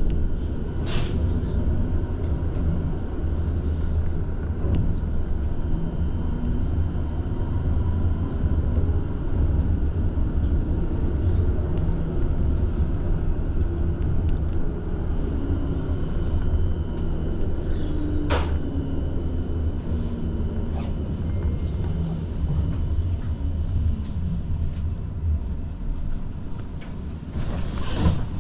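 Tram running, heard from inside the car: a steady low rumble with faint tones gliding up and down in pitch, and a sharp knock about eighteen seconds in and another near the end.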